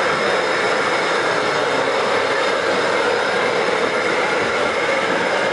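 7mm-scale model steam locomotive running along the layout track: a steady whirr of its electric motor and gearing with the running noise of wheels on rail, even and unbroken.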